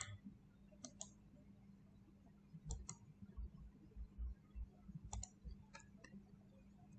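Faint clicks of a computer mouse, mostly in quick pairs a second or two apart, over a low steady hum.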